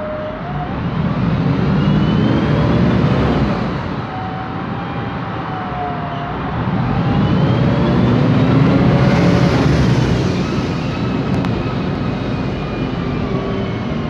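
MAN Lion's Classic city bus heard from inside the passenger cabin: its MAN E2876 CNG engine and Voith DIWA automatic gearbox are running under way, swelling louder twice. Thin whining tones glide up and down with them, the noisy differential and Voith gearbox sound coming from the rear.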